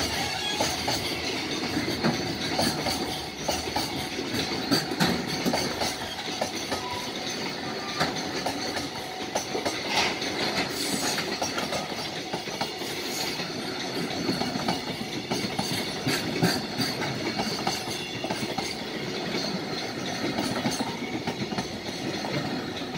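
Freight train of container flatcars passing close by at speed: a steady rumble of rolling wheels with frequent sharp clicks and clacks over the rail joints.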